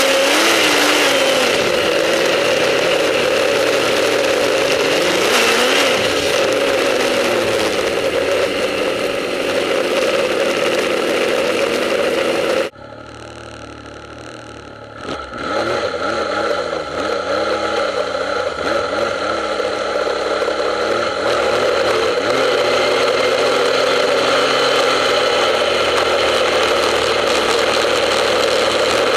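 Snowmobile engine running under way, its revs rising and falling. About thirteen seconds in, the sound drops suddenly to a lower level for a couple of seconds, then climbs back as the engine revs again.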